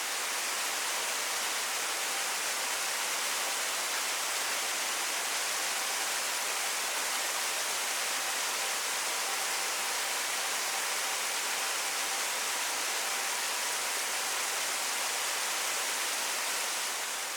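Kiyotaki Waterfall on Mt. Ontake, falling water pouring steadily: an even, unbroken rush with a strong high hiss.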